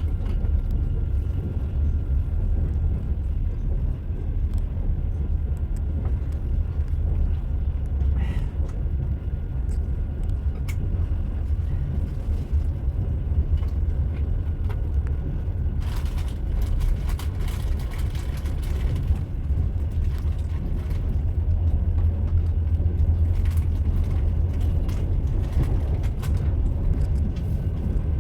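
Moving train running on rails: a steady low rumble with scattered clicks and rattles, and a brighter stretch of rattling about sixteen seconds in that lasts a few seconds.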